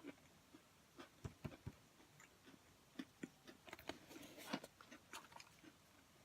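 Faint chewing of thin pretzel crackers (Townhouse Flipsides Thins): a scatter of small crisp crunches, thickest about four seconds in.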